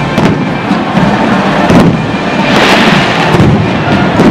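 Aerial fireworks shells going off: several sharp bangs, and a crackling hiss that swells a little past halfway. A marching band plays underneath.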